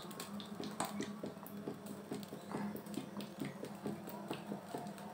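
Cooking oil poured in a thin stream into a karahi, making irregular soft ticks and splashes several times a second over a steady low hum.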